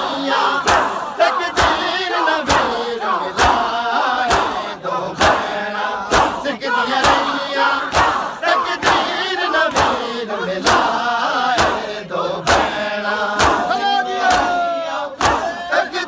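Crowd of men doing hand matam: chests slapped in unison with a sharp clap about once a second, while the group chants a lament together.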